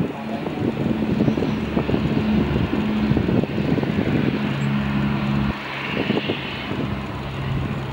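Airbus A350-900's Rolls-Royce Trent XWB turbofans at taxi power, a steady jet hum and hiss that swells about six seconds in as the aircraft turns toward the microphone. Wind buffets the microphone with low thumps throughout.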